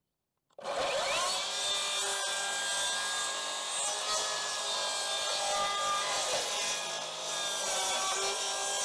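Makita HS011GZ 40V cordless circular saw starting up about half a second in, then cutting through the wooden fence slats under load with a steady motor whine. It trims the overlapping slats flush with the top rail in a single pass.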